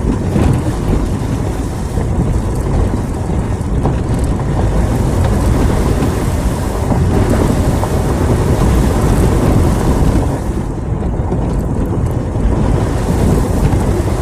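Off-road vehicle driving along a rough, muddy forest track, heard from inside the cab: a loud, steady mix of engine and tyre noise, strongest in the low range.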